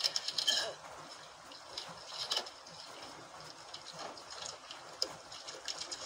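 Sea water splashing and lapping against a wooden outrigger boat in irregular surges, loudest at the very start.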